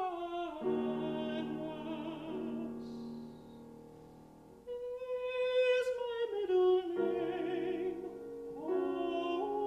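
Operatic singing with piano accompaniment: a voice sings held notes with vibrato over piano chords, with a quieter passage about halfway through before the voice enters again.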